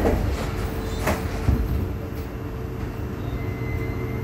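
Sliding passenger doors of a Kawasaki–Nippon Sharyo C751B metro train shutting, with a knock about a second in as they close. This is followed by the train's steady hum and a steady tone as it stands ready to depart.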